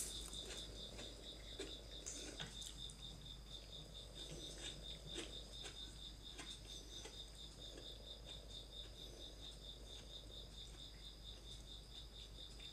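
A high chirp pulsing evenly several times a second, steady throughout, the kind a cricket makes. Under it are faint scattered soft clicks of a tabby cat licking and eating from a small saucer.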